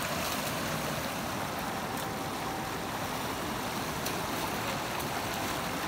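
Swollen Indus floodwater rushing and swirling past a stone wall: a steady rushing noise with no letup.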